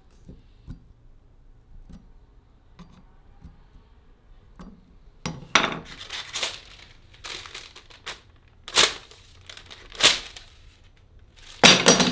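Handling noise in a small room: a few faint clicks, then from about five seconds in five short, loud bursts of crinkling and clinking, the loudest near the end.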